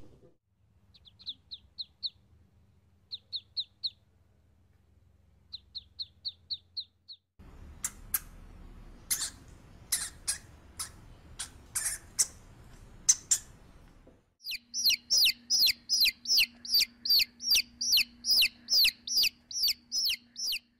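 Baby chicks peeping in a fast, even series of short, high, falling peeps, about three a second, in the last third. Before that come brief trains of high chirps, then a run of sharp squeaks and clicks.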